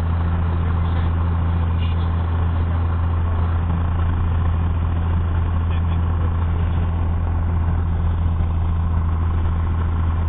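Piper PA-32's six-cylinder piston engine and propeller running steadily at low taxi power, heard from inside the cabin as an even, low drone.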